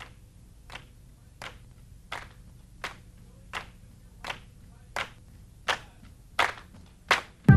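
A steady beat of sharp claps or clicks, about three every two seconds, growing louder with each one as it fades in, over a faint low hum.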